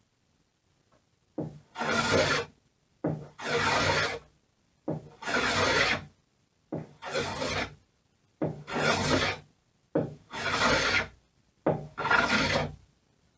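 Small hand plane cutting along the edge of a plywood rudder blade: seven rasping strokes of about a second each, each taking off a curled shaving, with short pauses between.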